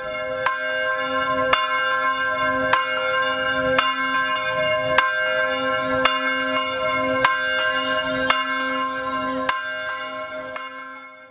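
Church bell tolling steadily, about one strike a second, each stroke ringing on into the next. It fades out near the end.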